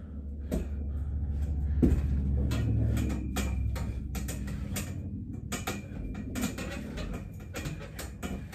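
Freestanding metal dip bars clicking and knocking under a person's shifting weight during dips. The knocks come irregularly, one loud knock about two seconds in, over a steady low hum.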